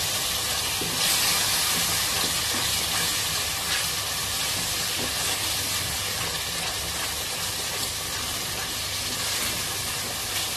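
Spice masala of onion paste and yogurt sizzling in oil with a steady hiss, stirred and scraped around the pan with a wooden spatula. This is the bhuna stage, where the masala is fried until the oil separates.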